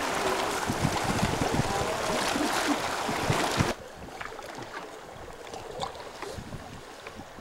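Wind buffeting the microphone and river water rushing past a canoe, with irregular low thumps. A little under four seconds in this cuts off abruptly to a much quieter river sound with faint scattered splashes and ticks.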